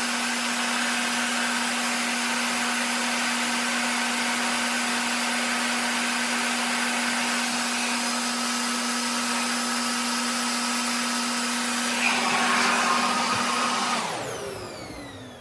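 RevAir reverse-air blow dryer running with a steady hum and rush of air, briefly louder about twelve seconds in, then switched off near the end, its motor winding down with falling pitch.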